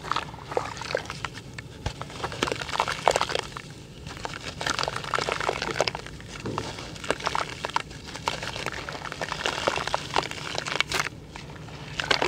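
Hands squeezing and breaking up a crunchy, crumbly lump of dirt in a bucket of muddy water: wet sloshing and splashing with dense, irregular gritty crackles.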